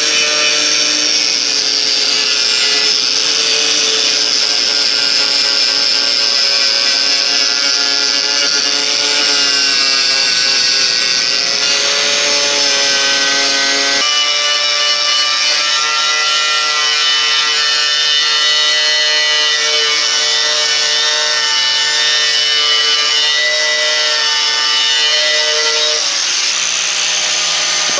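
Power grinder running steadily with a whine, grinding old epoxy off a cast aluminum motorcycle oil pan down to bare metal. Its tone changes abruptly about halfway through and again near the end.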